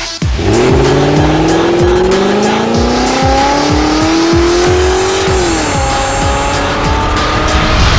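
Car engine sound effect revving up in one long rising whine with tyres squealing in a burnout, over an electronic music beat. The pitch falls away a little after five seconds.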